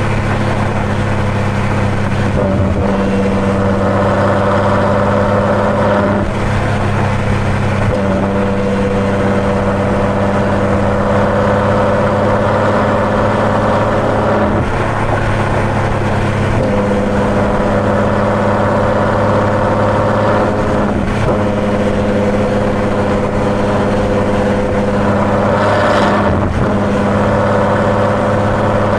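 Ferrari GTC4Lusso V12 with a Capristo aftermarket exhaust droning steadily at highway cruising speed, over tyre and road noise. Its note dips or steps briefly several times.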